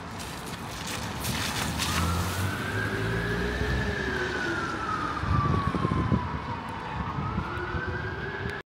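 Emergency vehicle siren wailing in a slow rise and fall of pitch over the rumble of city street traffic. The sound cuts off suddenly near the end.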